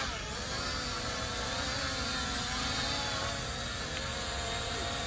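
DJ1 camera drone in flight, its motors and propellers giving a steady whine of several pitches that waver slightly up and down.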